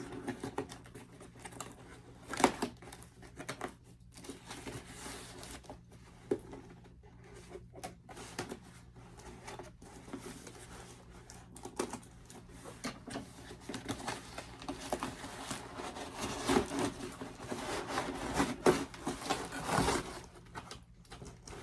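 Scissors and hands opening a taped cardboard box: scattered clicks, snips, scrapes and rustles of tape and cardboard, with a sharp knock a couple of seconds in and busier handling near the end.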